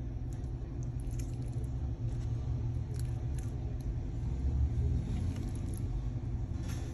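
Steady low rumble of a car engine idling, heard from inside the cabin, with a few faint scrapes and clicks of a plastic fork picking at chicken in a foam takeout box.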